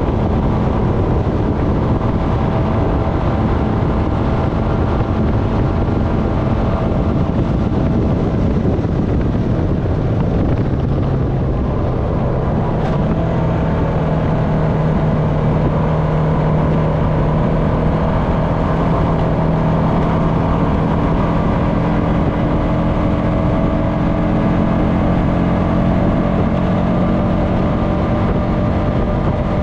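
Honda FourTrax Foreman ATV's single-cylinder engine running under way at a steady trail speed. Its note dips about ten seconds in, then settles into a steady tone for the rest.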